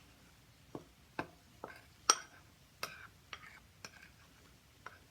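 A utensil clinking and tapping against a mixing bowl in irregular strokes while a thick mask paste of aloe vera, flour, honey and lemon juice is stirred together. The loudest clink comes about two seconds in.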